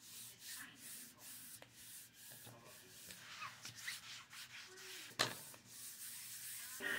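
Hand rubbing the back of a sheet of paper laid on a gel printing plate: repeated short, hissing strokes of palm and fingers over the paper, burnishing it to pick up the print. A single sharp tap about five seconds in.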